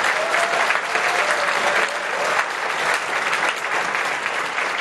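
A large audience in an auditorium applauding, a dense, steady clapping.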